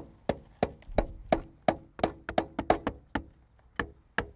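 Hand hammer driving roofing nails through metal step flashing and shingles: a quick run of about a dozen ringing strikes at roughly three a second, a short pause, then two more blows near the end.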